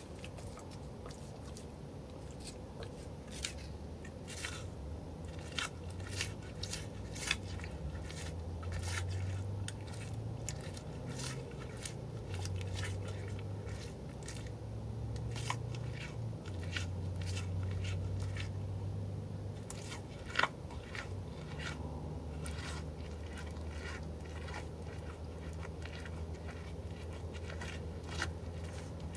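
Mule deer chewing food close up: a run of irregular crunching bites, one sharper crunch about two-thirds of the way through.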